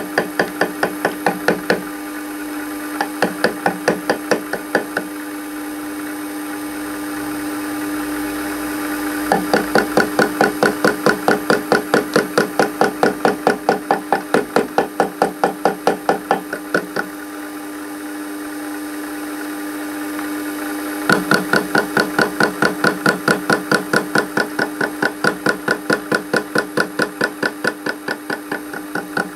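Small metal lathe running with a steady hum while the tool bit takes light interrupted cuts on an aluminium flywheel blank turning at about 250 RPM. The tool strikes the uneven edge once per revolution, a rapid regular knocking about four times a second, in four runs. The last two runs last about eight seconds each.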